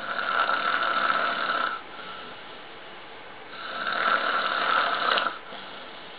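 A man snoring loudly in his sleep: two long snores, each nearly two seconds, a couple of seconds apart with a quieter breath between.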